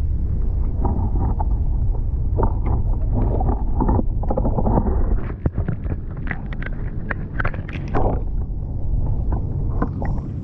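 Water sloshing and splashing around a microphone held half under the surface in a keep net of fish, over a steady low rumble. Irregular knocks and splashes come thickest through the middle.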